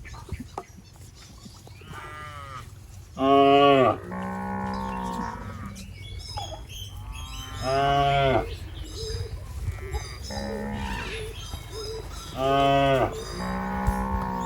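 Cows mooing: three loud moos about four to five seconds apart, with quieter, longer moos from other cattle between them.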